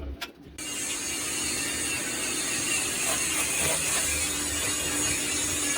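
A few sharp taps, then about half a second in a stick-welding arc strikes and crackles and hisses steadily.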